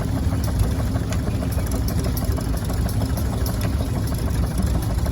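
Antique farm engine running steadily, with an even, rapid beat.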